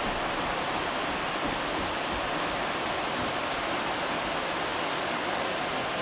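A small stream rushing down a rocky cascade: a steady, even rush of water.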